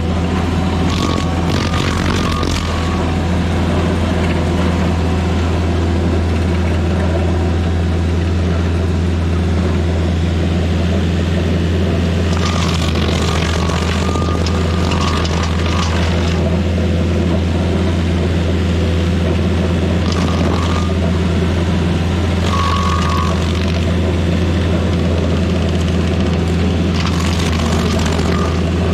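Rayco RG50 stump grinder running steadily under load, its spinning cutter wheel chewing through maple roots and soil. The grinding gets harsher and grittier in several stretches, about a second in, around twelve to sixteen seconds, around twenty to twenty-three seconds and near the end, as the teeth bite harder into wood.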